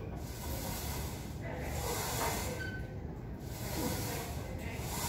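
A person breathing hard during barbell squats, hissing breaths that come and go about every second and a half, over a steady low hum.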